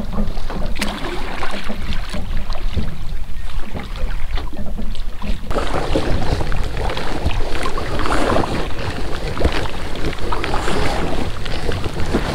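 Packraft being paddled on a lake: the double paddle's blades dipping and splashing with water dripping and lapping, over a steady low rumble of wind on the microphone. From about five seconds in the splashing is closer and louder.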